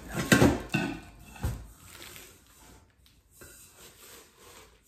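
Knocks and clunks of kitchen vessels being handled and unpacked, several in the first second and a half, then quieter handling sounds.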